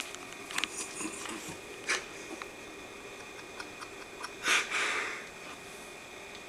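A short sniff close to the microphone about four and a half seconds in, among a few light clicks of handling noise, over a faint steady high-pitched tone.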